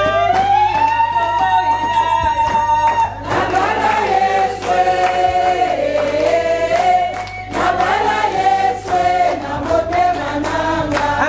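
Gospel worship singing with a live band: voices sing long held notes over a steady drum beat.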